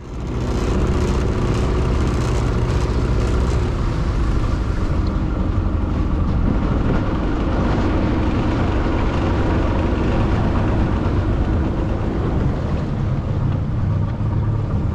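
An engine running steadily at an even pitch, with a hiss above it that thins about five seconds in.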